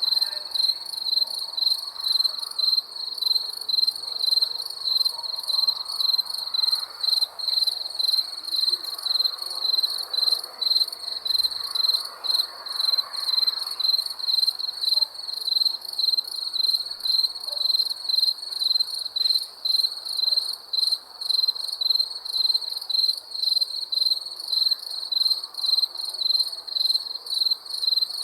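A cricket chirping in a steady, even rhythm: high-pitched chirps repeated a few times a second.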